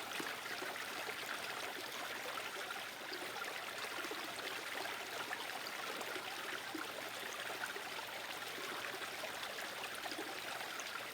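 Water running steadily over a small patio pond waterfall.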